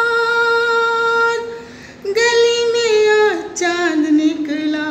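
A woman singing a Hindi film song, drawing out long held notes. The voice dips briefly about one and a half seconds in, then comes back on another held note, and the line falls in pitch near the end.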